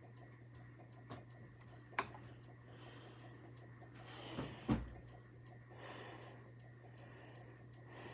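Nasal breathing close to the microphone, several short hissy breaths, over a steady low hum. A couple of small clicks come early, and a low thump comes a little before the middle.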